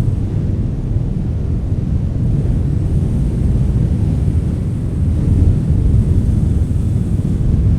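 Strong wind blowing, a deep rumbling rush from the wind buffeting the microphone, growing a little louder about five seconds in.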